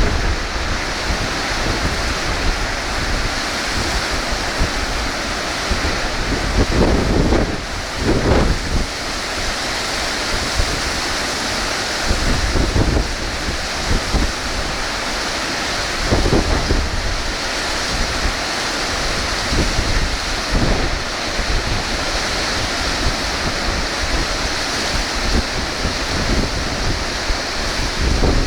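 Strong onshore wind off the sea with surf running steadily underneath; gusts buffet the microphone as low rumbles every few seconds.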